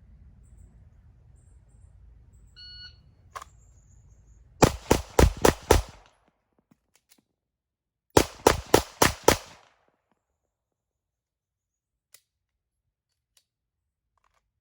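A shot timer beeps once. About two seconds later a Glock 19 9mm pistol fires five quick shots, roughly a quarter second apart. After a pause of about two and a half seconds for a speed reload, it fires five more quick shots.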